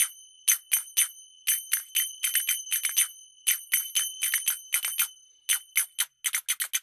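A small bell or piece of metal percussion is struck in a quick, slightly uneven rhythm, about four strikes a second. Each strike rings briefly at the same high pitch.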